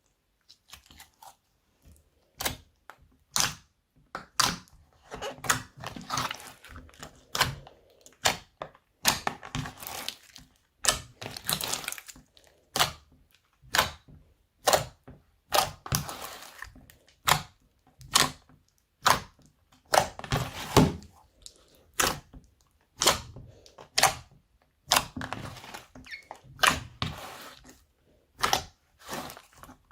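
Glitter slime being folded and squeezed by hand, giving sharp pops and clicks about once or twice a second with softer sticky sounds between, starting about two seconds in.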